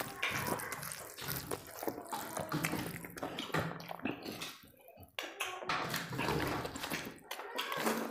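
Wet, squishy eating sounds: bare hands mashing rice with chicken curry on steel plates and mouths chewing, with many small clicks and smacks, picked up close by a clip-on mic. There is a short lull about five seconds in.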